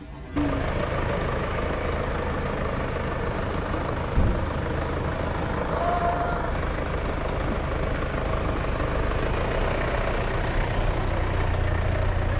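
Car engine idling, heard from inside the stationary car as a steady low hum with general cabin and street noise, with a single dull thump about four seconds in.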